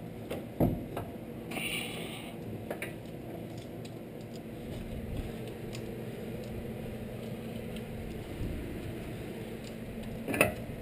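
Faint metal clinks and knocks from hands working at a car's brake rotor and steering knuckle while fitting a CV axle. There is a short knock about a second in and a sharper one near the end, over a steady low hum.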